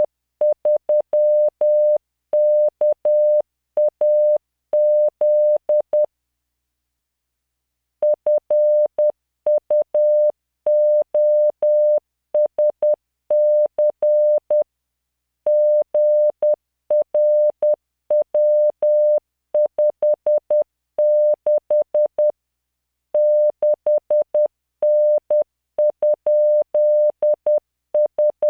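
Computer-generated Morse code from the CW training program LearningMorse: a steady 600 Hz tone keyed on and off in dots and dashes at 10 words per minute, sending random five-character groups of letters, figures and punctuation. The tone stops for about two seconds around six seconds in, then resumes.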